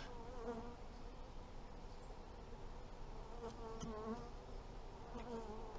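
Honeybees buzzing around an open hive: a faint, wavering hum that swells several times as bees fly close.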